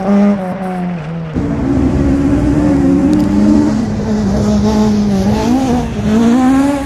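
Race car engine revving on and off the throttle, its pitch rising and falling, with a short dip about a second in.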